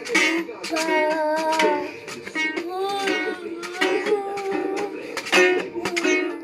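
A young child singing while strumming the strings of a small toy guitar, the strums coming as quick repeated strokes under the sung notes.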